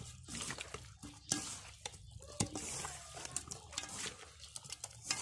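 Scored crucian carp being mixed by hand in an oily soy-sauce marinade in a metal bowl: wet squishing and sliding of the fish, with a few sharp knocks against the bowl.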